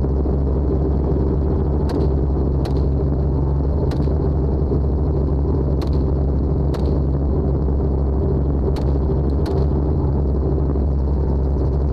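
Hunting helicopter's steady engine and rotor drone, with seven sharp cracks at uneven spacing over the first ten seconds: rifle shots fired at a hog from the helicopter.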